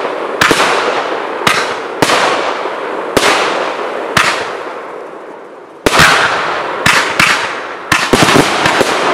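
Category 4 display fireworks: aerial shells going off in sharp bangs, each trailing away in a fading hiss. About five bangs come a second or so apart, then a short lull past the middle. Near the end a quicker run of bangs follows.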